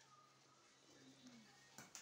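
Near silence: faint room tone with a low hum and one soft knock near the end.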